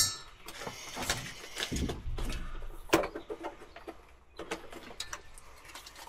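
Scattered clicks and rustles from a clamp meter and its test leads being handled and readied for a voltage check, with a sharp click right at the start and another about three seconds in.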